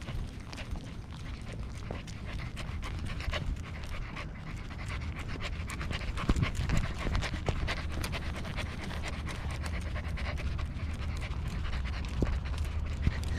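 Corgi panting steadily, heard very close from a camera on its collar, with scattered small clicks and knocks throughout.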